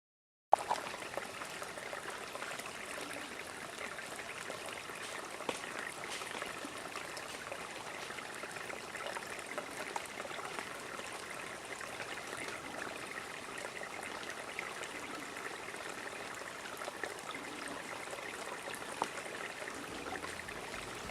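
Water running steadily, like a small stream trickling, starting suddenly about half a second in.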